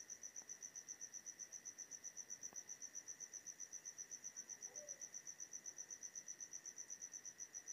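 A cricket chirping steadily in the background: a quiet, high-pitched note pulsing evenly about nine times a second, over a faint steady hum.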